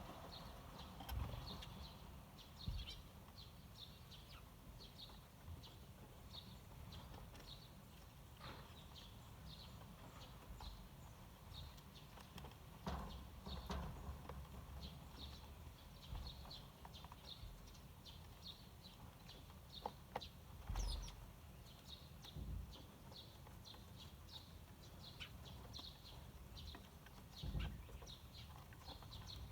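Eurasian tree sparrows chirping, faint, with many short, high chirps repeating throughout. A few low thumps come in between, the loudest about a third of the way in and near the end.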